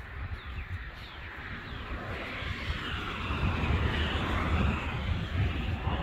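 Outdoor ambience: a few birds chirp over a low rumble, and a broad rushing noise swells about two seconds in and holds.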